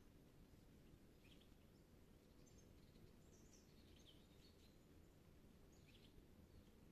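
Faint wild birdsong: a few scattered short chirps and calls, spread through the stretch, over a steady low rumble.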